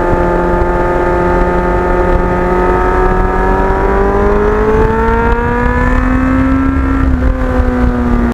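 Kawasaki Ninja GPX750R motorcycle engine running through a Norton muffler, its note rising slowly and steadily as the bike accelerates, then dipping slightly about seven seconds in. A heavy low rumble runs underneath.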